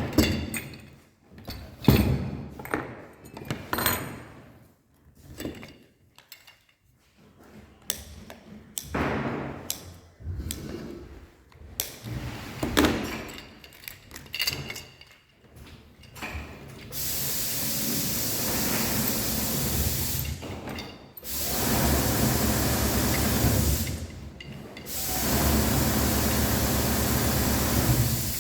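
Scattered clicks and rustles of small hardware and sailcloth being handled. From about halfway, stretches of steady loud hissing, whirring noise a few seconds long, stopping briefly between them.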